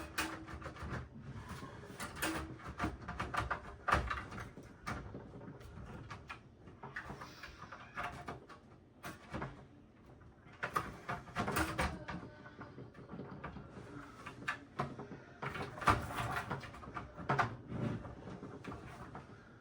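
Irregular clicks, knocks and rattles of hands working parts loose inside a desktop PC case, around the front I/O panel and its shielding.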